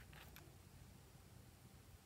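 Near silence: room tone, with a couple of faint clicks in the first half-second.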